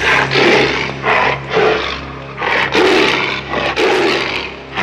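A large animal roaring in repeated bursts, about one a second, over a low steady hum.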